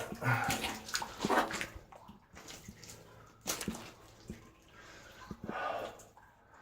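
Water splashing and dripping in irregular bursts inside a flooded mine tunnel.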